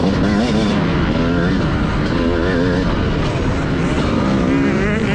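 TM Racing 250 motocross bike's engine running hard under the rider, its pitch rising and falling again and again as the throttle is worked, over a rush of wind and track noise.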